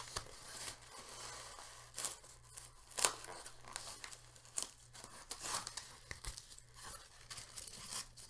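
Packing being handled and pulled apart: irregular tearing, crinkling and crunching of broken styrofoam and wrapping in an opened box.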